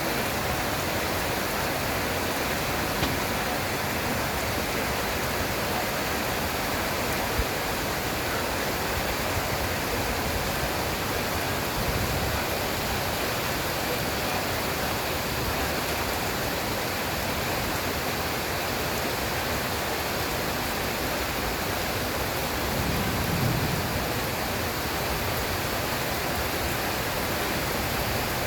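Heavy rain falling as a steady, even hiss. Two brief low rumbles rise under it, one a little before the middle and one later on.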